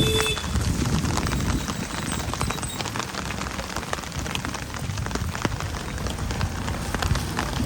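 Steady rain falling, a dense patter of small drops over a low rumble.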